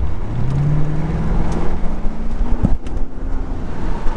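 A 2001 Corvette C5's 5.7-litre V8 pulling under acceleration, its pitch rising over the first second or so and then holding steady, over road and wind noise. There is a sharp knock about two and a half seconds in.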